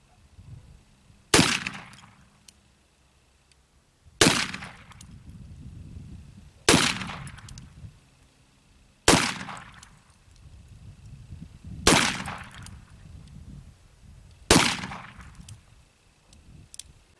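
1858 Remington Navy .36-calibre black-powder cap-and-ball revolver fired six times, about two and a half seconds apart. Each shot is a sharp crack followed by a low rumble. The load is 25 grains of homemade black powder behind a .380 round ball.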